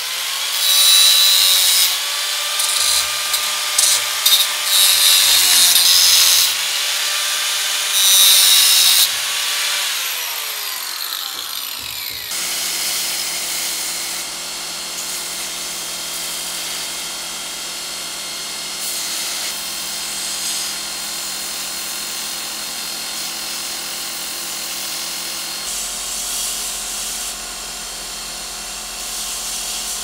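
Angle grinder whining, its disc biting into a steel knife blade in several loud bursts, then spinning down with a falling pitch about ten seconds in. About twelve seconds in a belt grinder takes over, running steadily with a hum while a small steel knife part is ground against the belt.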